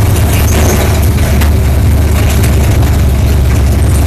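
Stock car's engine running at speed through a turn, heard from inside the cabin as a loud, steady low drone.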